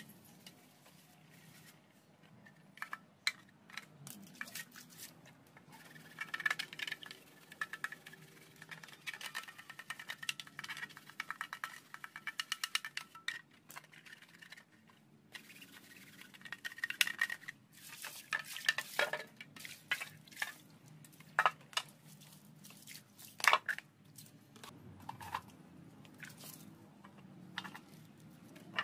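A toothbrush and scouring pad scrubbing plastic motorbike lamp lenses in soapy water: quick rasping back-and-forth strokes in runs of a few seconds, with a plastic bag crinkling and water dripping.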